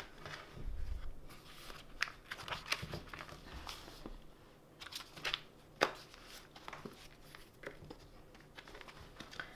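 Paper planner and stationery being handled: soft rustling of pages and plastic with scattered light clicks and taps, the sharpest about 2, 3 and 6 seconds in.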